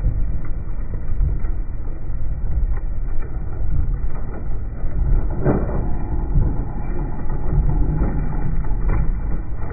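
Caterpillar crawler dozer pulling a Savannah 200 bedding plow through rooty ground under load: a steady low rumble of diesel and tracks with the plow's discs cutting soil. Occasional cracks and snaps of woody debris, the loudest about halfway through and another near the end.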